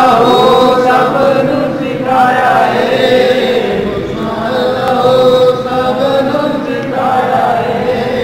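Devotional chanting: voices rising and falling in long, drawn-out phrases, a new phrase starting about every two seconds.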